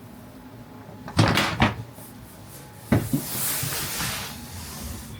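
Household knocks and clatter, like a door or lid being handled: two sharp knocks about a second in, another near three seconds, then about a second and a half of rustling.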